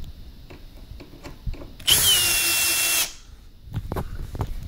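Cordless drill/driver running for about a second as it backs a screw out of an espresso machine's casing, a steady high motor whine that dips slightly as it starts. A few light knocks of handling follow.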